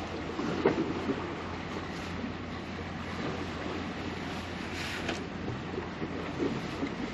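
Wind and sea waves, with a few light knocks less than a second in and a short hiss about five seconds in.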